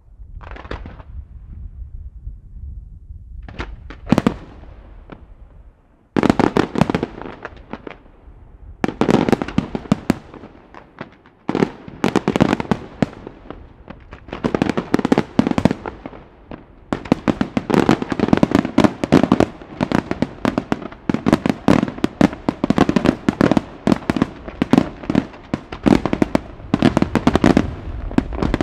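Professional fireworks display: a few scattered bursts, then from about six seconds in a dense barrage of rapid-fire shell launches and bursts, the bangs following close on one another almost without a break.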